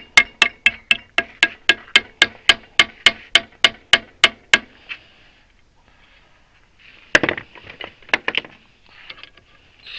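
Hammer rapidly striking a metal part, about four ringing blows a second, beating it down into place; the blows stop about four and a half seconds in. Around seven seconds one harder knock, then a few lighter clinks.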